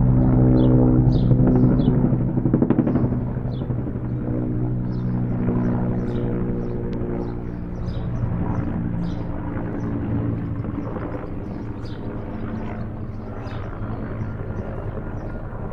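Bell 212 helicopter, with its twin-turbine engines and two-bladed main rotor, droning steadily and slowly growing fainter.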